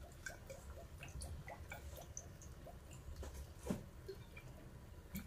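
Faint small pops and drips from a pot of soup simmering, with a couple of soft knocks in the second half.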